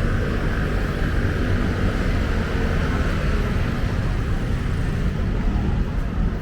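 Steady low rumble of city road traffic, with no single event standing out.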